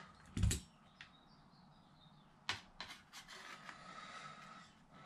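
Sharp metallic clacks and clicks from locking pliers and a brass bullet connector being handled on a sheet-metal plate: one louder clack about half a second in, a quick run of four or five lighter clicks about halfway through, and faint handling noise between them.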